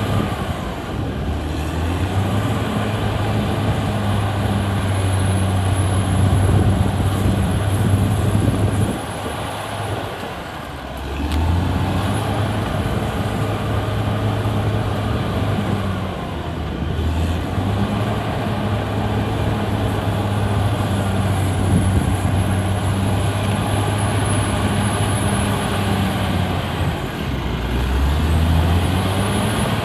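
Caterpillar D6R XL bulldozer's diesel engine working under load. Its steady low note eases off for a couple of seconds about a third of the way through, then picks back up, and dips briefly twice more.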